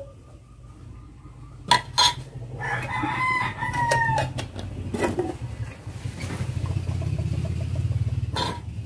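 A rooster crows once, a drawn-out call of about a second and a half that falls slightly in pitch, starting nearly three seconds in. Two sharp knocks come just before it, and a low steady rumble fills the last few seconds.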